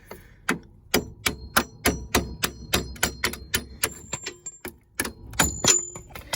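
Hammer blows driving the strut-to-spindle bolts out of a 1995 Plymouth Voyager's front suspension: a rapid run of metallic clangs, about three a second, each ringing briefly. After a short pause come two final strikes, the loudest, as the bolts give.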